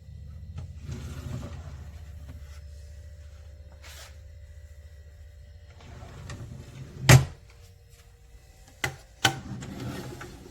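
Low rumble of handling, then one sharp knock about seven seconds in and two quicker clicks near the end.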